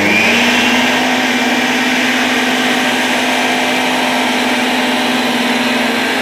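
A small electric motor in a model car wash running steadily, with an even whine and a loud hiss.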